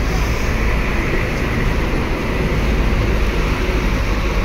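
A large diesel coach bus (Adiputro Jetbus high-deck body) driving slowly past at close range into a car park, its engine running with a steady, loud rumble.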